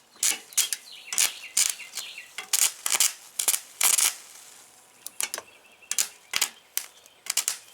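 Arc welding rod on car-battery power striking and sputtering in short, irregular crackling bursts, the arc catching only for a moment each time: two batteries in series are not enough to hold a steady arc.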